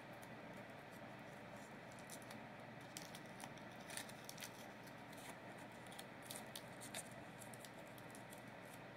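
Faint crinkling of a Lindor chocolate snowman's foil wrapper being picked open by hand: a scattering of small crackles and ticks, most of them between about three and seven seconds in.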